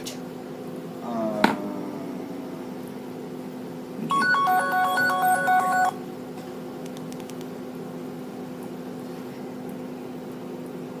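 A phone plays a quick run of electronic tones, stepping between pitches for about two seconds, as a call is being placed. Earlier, a short rising sound ends in a click, and a low steady hum runs underneath.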